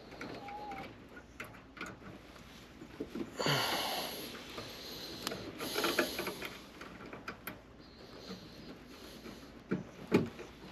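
Hands working the wiring inside an air handler: rustling and scraping of wires with scattered sharp clicks, and two longer rustles in the middle.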